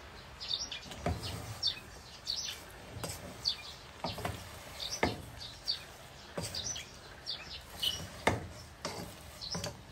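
Wooden spatula stirring chopped leafy greens in a non-stick pot, knocking against the pot a few times. Small birds chirp repeatedly in the background.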